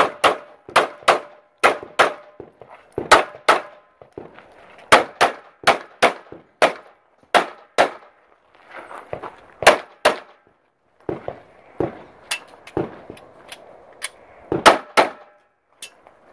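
Rapid pistol fire during a competition stage: dozens of sharp shots, many in quick pairs with short pauses between strings, each ringing out briefly.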